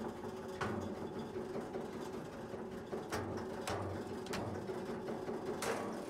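Log splitter's motor running with a steady hum, and several sharp knocks from split firewood being handled and set down.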